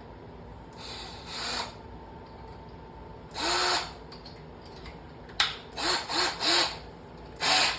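Hart 20V cordless 1/2-inch hammer drill run in several short trigger pulls, each a brief burst with the motor whining up as it starts, and a sharp click about halfway through.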